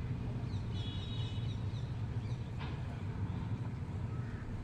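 Small birds chirping for about a second near the start, over a steady low rumble.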